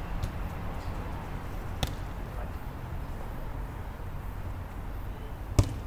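A football kicked twice, a lighter strike about two seconds in and a much louder one near the end, over a steady low rumble.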